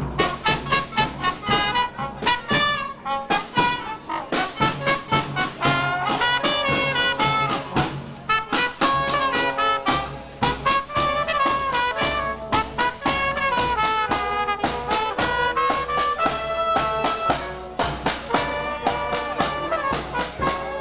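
Marching band of brass and woodwind instruments playing a lively tune in quick, short notes, with trumpets and trombones carrying the melody.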